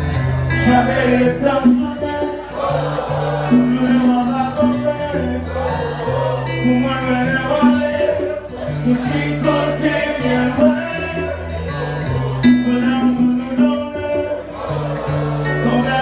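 Male vocalist singing live into a microphone over acoustic guitar accompaniment, amplified through a PA in an unplugged-style set.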